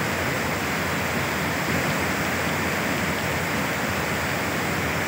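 Muddy floodwater rushing in a torrent, carrying debris: a steady, unbroken rush of water.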